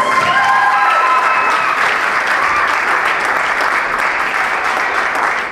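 Audience applauding in a theatre, with a few voices calling out over the clapping in the first two seconds; the applause slowly dies down toward the end.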